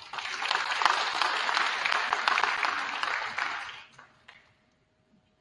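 Audience applause: many hands clapping at once, steady and then fading away about four seconds in.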